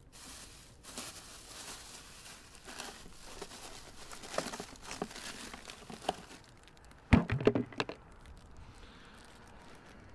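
A plastic bag crinkling and rustling as a hand rummages in a cooler, with a short cluster of loud knocks and clatter about seven seconds in.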